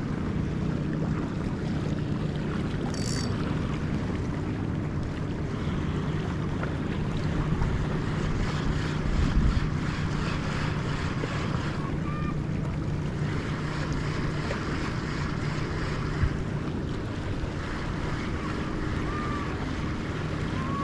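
Fishing boat's diesel engine running steadily under way, a constant low hum mixed with wind on the microphone and the wash of water.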